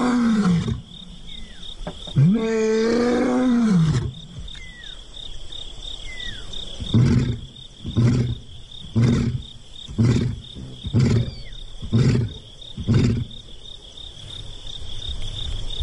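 Male lion roaring: two long moaning calls, then a run of seven short grunts about a second apart. It is a long-distance call to locate a separated companion. Insects chirr steadily behind.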